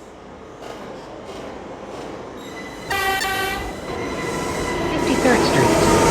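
R179 subway train running through the tunnel, its running noise growing steadily louder. A short horn blast sounds about three seconds in, and squealing wheel tones come in near the end as it nears the station.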